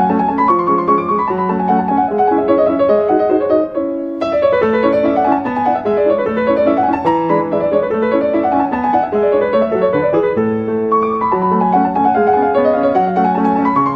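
Background music: a piano playing a flowing melody of quick running notes, with a short break about four seconds in.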